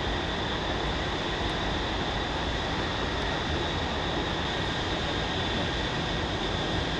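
Steady rumble and hiss of harbour ambience, with a faint steady high whine over it.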